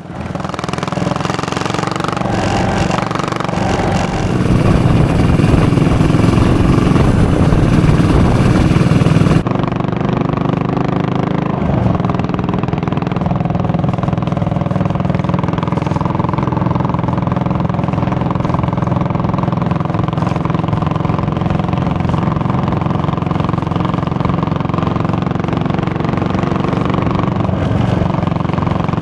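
Yamaha SR400 single-cylinder motorcycle engine and exhaust running. It is louder and hissier for the first nine seconds or so, then changes abruptly to a steady, even running note.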